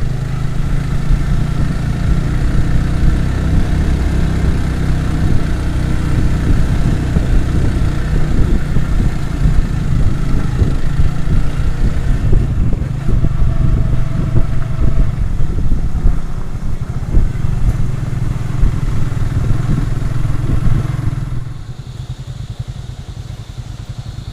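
Motorcycle engine running under way, with heavy wind buffeting on the microphone, loud and steady. The noise drops off sharply near the end.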